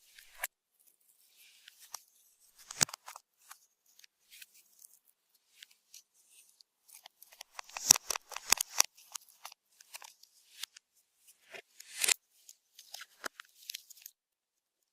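Slime being squished and kneaded by hand, giving irregular sticky crackles and pops, densest about eight seconds in and again near twelve seconds.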